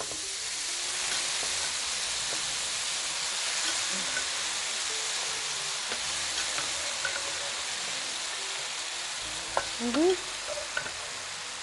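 Boiled penne, still wet from its cooking water, tipped into a hot frying pan of mushrooms and sizzling with a steady hiss.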